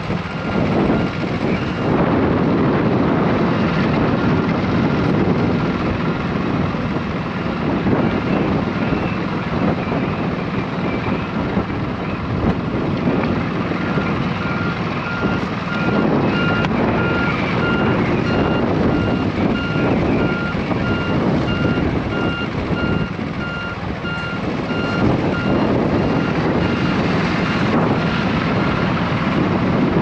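Loud, steady rush of strong wind buffeting the microphone at a grass fire front. An electronic warning beeper sounds in fast, evenly repeated high beeps, briefly at the start and again through the middle, stopping a few seconds before the end.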